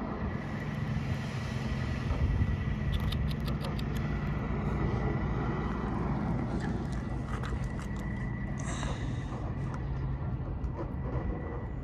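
A motor vehicle engine idling steadily with a low, even hum. A quick run of about six light clicks comes about three seconds in.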